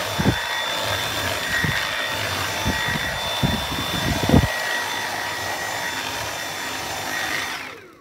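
Dyson V7 Animal cordless stick vacuum running with its small power head brush over carpeted stairs: a steady rush of air with a high motor whine, broken by several dull knocks in the first half. The motor winds down near the end.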